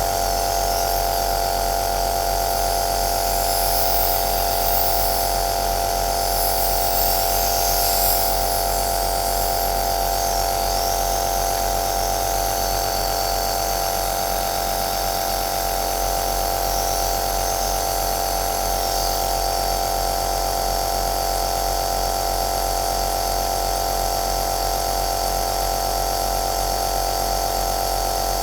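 Home compressor nebulizer (aerosol machine) running steadily: an even motor drone with one strong steady tone and a hiss of air over it.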